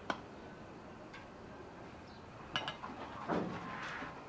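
A metal serving spoon clinking against a porcelain plate a few times as cabbage rolls are set down on it, one clink ringing briefly, followed by a soft scrape.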